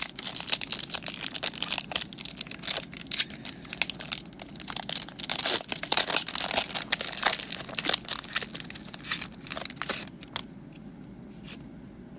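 Foil wrapper of a Pokémon TCG Vivid Voltage booster pack crinkling and tearing as it is opened by hand, a dense crackling that dies away about ten seconds in.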